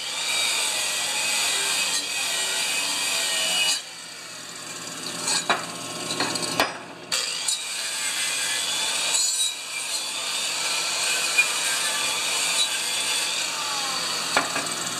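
Electric angle grinder with a wire cup brush scrubbing the freshly welded hub of a steel pulley, cleaning up the weld. It runs steadily, with a quieter stretch about four seconds in and a short break about seven seconds in.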